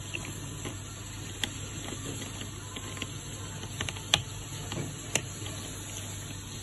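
Kitchen room tone: a steady low hum with a few light clicks and taps of kitchenware on the counter, the sharpest about four seconds in.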